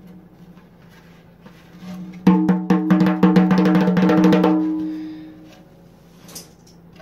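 A loose 14-inch Remo Fiberskin djembe head, held on its own without a drum, tapped with the fingers in a quick flurry of strikes lasting about two and a half seconds. It rings with a steady pitch that fades away over the next second.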